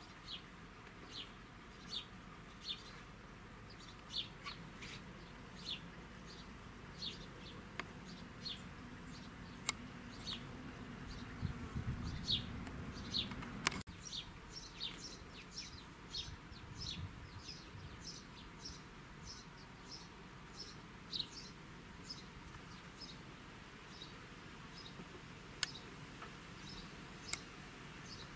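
A small bird chirping over and over in short, falling chirps, roughly one a second. A few sharp clicks stand out above it.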